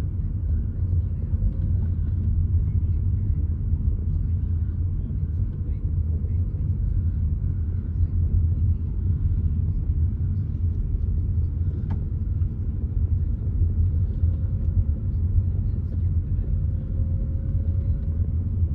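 Steady low rumble of a car driving, engine and road noise heard from inside the vehicle.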